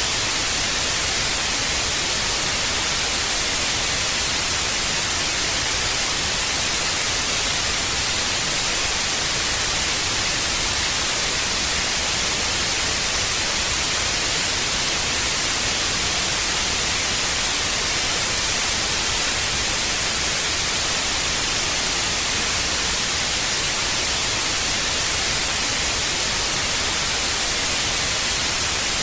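Old analogue TV static: a steady, even hiss of white noise, strongest in the high end, unchanging throughout.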